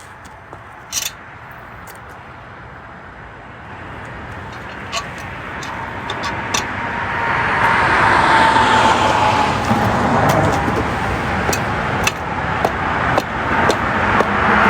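Motor vehicle noise that builds up over several seconds and then stays loud, with a faint steady tone and a few light clicks.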